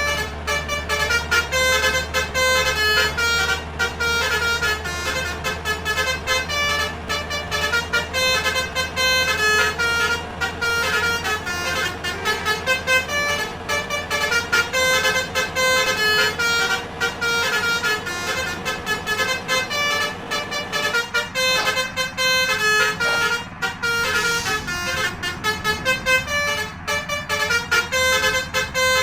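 Bus 'telolet' basuri horns playing quick melodic tunes of short notes, over the low rumble of a bus engine that fades about two-thirds of the way in.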